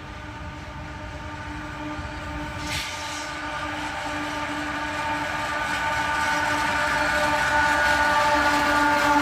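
Freight train locomotives approaching, the sound growing steadily louder, with several steady tones held throughout.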